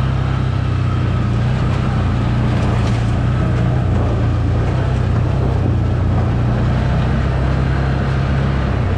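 ATV engine running steadily while riding, with a constant low drone.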